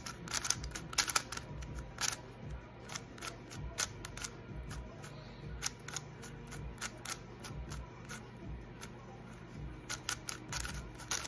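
A MoYu YS3M magnetic 3x3 speed cube turned by hand, unlubricated straight out of the box: irregular runs of sharp plastic clicks as the layers turn and snap into place. The clicks are busiest in the first second or so and again near the end, sparser in between.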